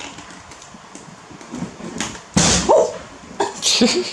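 A rubber balloon bursting with a single loud pop as a young macaque bites it, about two seconds in, followed by short, high yelping cries from the monkey.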